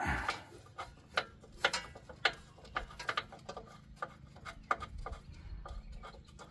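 Hand ratchet clicking in short irregular runs as a rear wheel hub's mounting bolt is backed out, with a knock right at the start.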